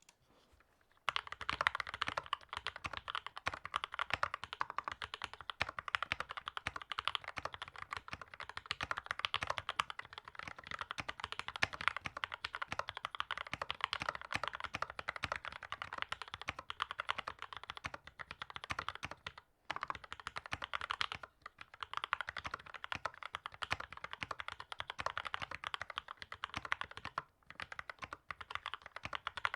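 Fast continuous typing on a mechanical keyboard with lubed and filmed Gateron Yellow linear switches, a carbon fiber plate, a wooden case and PBT keycaps: a dense stream of keystrokes starting about a second in, with a few brief pauses.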